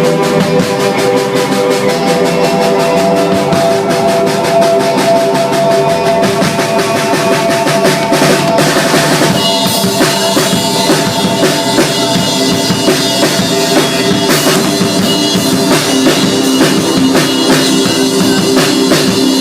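Recorded band music with a drum kit keeping a steady beat under sustained pitched instruments; the arrangement changes about halfway through.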